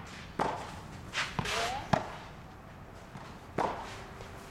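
Tennis rally with a low-compression red ball: a few separate sharp knocks of the ball off the racket strings and the court, spaced about a second or more apart.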